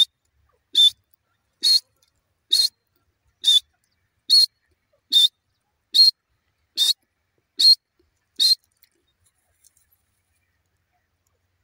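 Grey francolin calling: a series of eleven short, shrill, evenly spaced notes, a little more than one a second, stopping about three seconds before the end.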